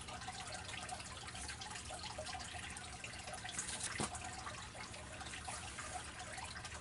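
Steady, faint background hiss of room noise, with one soft click about four seconds in.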